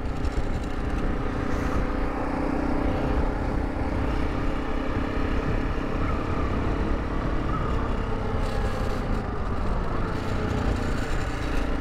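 Honda CRF300 Rally's single-cylinder engine running steadily while riding, freshly rebuilt, with a low wind rumble on the microphone.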